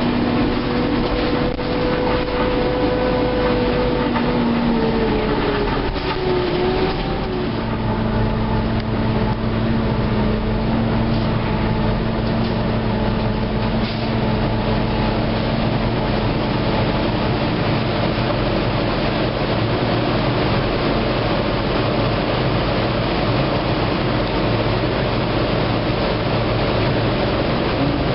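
Interior of a NABI LFW low-floor transit bus under way: steady engine and drivetrain hum with road noise. A whine drops in pitch about five seconds in, then settles into a lower steady tone.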